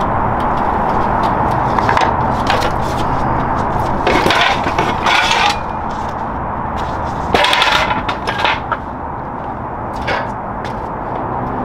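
A metal hand truck being unhooked from a telescope's base and its strap pulled off, with several spells of clatter and scraping as the dolly and strap are handled and moved aside, over a steady background hiss.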